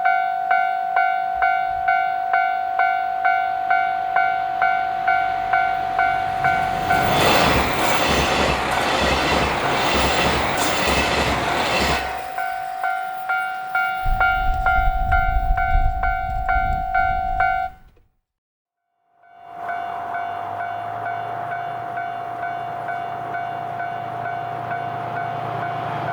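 Japanese level-crossing warning bell ringing its repeating electronic ding, about two strikes a second. A diesel train passes over the crossing from about seven seconds in, its wheels clacking rhythmically over the rail joints. After a brief break the bell rings on over a low engine hum.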